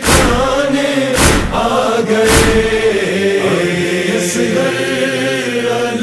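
A chorus of voices chanting a long, drawn-out background line of a noha lament, with three heavy thumps about a second apart in the first half.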